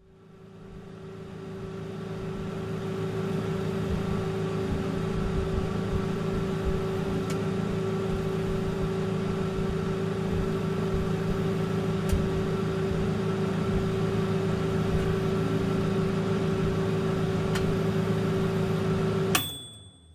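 Microwave oven running: a steady hum with a low rumble under it and a few faint ticks. Near the end it cuts off suddenly with a click and a short high tone.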